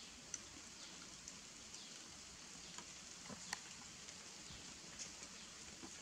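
Faint steady hiss with a few soft, scattered clicks and taps.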